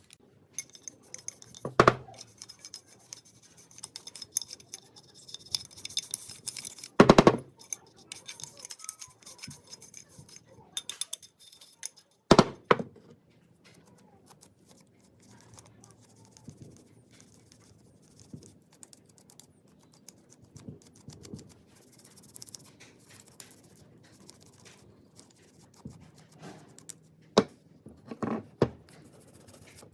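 Scattered knocks and clinks of metal parts and tools being handled on a workbench, a handful of sharper strikes standing out, with light scraping and rustling between.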